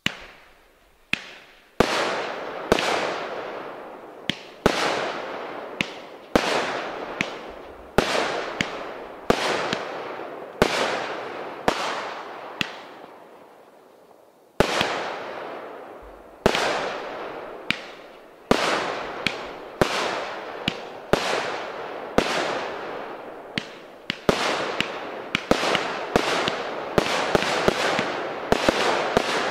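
Pyro King Buck Fever 200-gram consumer firework cake firing its shots of flaming balls one after another. Each shot is a sharp pop followed by a hiss that fades over about a second. They come about once a second, then faster and overlapping in the last few seconds.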